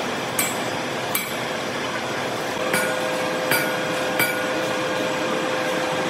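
Large engine lathe running, its tool cutting a rusty steel shaft, with a steady machine noise and five sharp, ringing metallic clinks. A steady tone sets in a little before the middle.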